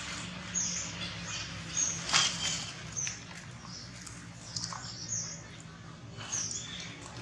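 Short, high-pitched animal chirps, about seven of them at irregular intervals, over a steady low hum. There is a brief rustle about two seconds in.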